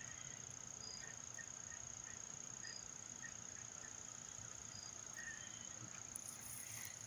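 Faint insect chorus: a steady high-pitched drone with soft short chirps repeating at uneven intervals.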